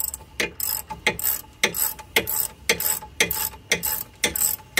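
Hand ratchet wrench backing out a brake caliper's top mounting bolt, the pawl clicking in short bursts about twice a second as the handle is swung back and forth.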